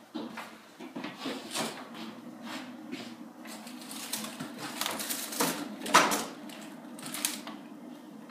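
Footsteps, then a string of clicks and knocks as plastic food containers are put into a refrigerator's top freezer and the freezer door is handled; the loudest knock comes about six seconds in.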